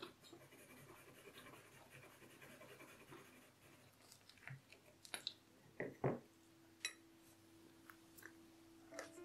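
Faint scratching of a pencil drawing on paper, then a few light clicks and knocks from about halfway through as a metal spoon touches a dessert glass sitting on a china saucer.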